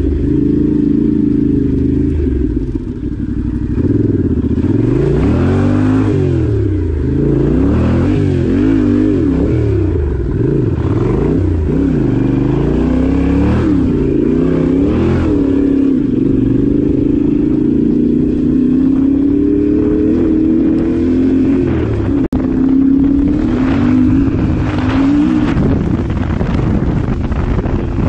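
Yamaha Ténéré 700's parallel-twin engine running off-road, its revs climbing and dropping again and again as the throttle is opened and closed, then holding steadier for a while before rising and falling once more.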